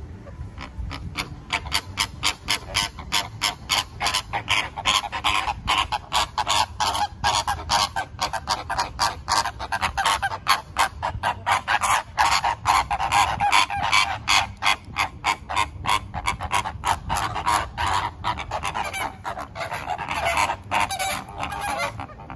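A flock of flamingos honking over one another: a continuous chorus of short, nasal calls, several a second.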